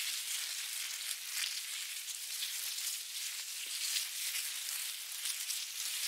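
A steady crackling hiss, a dense run of fine crackles over a high hiss, sounding like sizzling.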